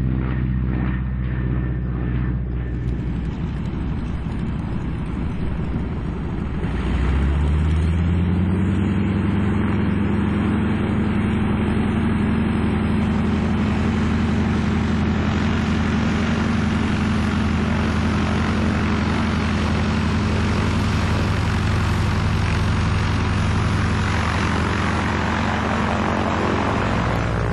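North American T-6 Texan's Pratt & Whitney R-1340 Wasp radial engine and propeller running at a lower pitch, then about seven seconds in the throttle comes up and the pitch rises to a steady, louder drone.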